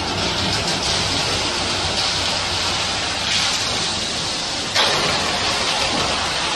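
Ready-mix concrete truck running with a steady rushing noise. About three-quarters of the way through, a sudden louder rush starts as wet concrete begins sliding down the metal discharge chute.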